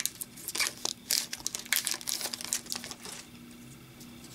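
Foil wrapper of an Upper Deck hockey card pack crinkling as it is pulled open by hand: a run of short crackles that dies down after about three seconds.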